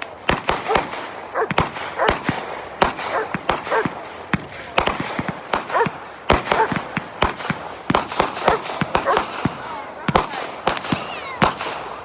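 Fireworks going off: a rapid, irregular string of sharp bangs and pops, several a second.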